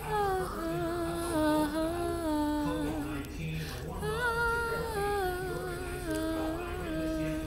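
A woman singing a cappella without words, holding long notes in two phrases that each step down in pitch, with a short breath between them about three seconds in.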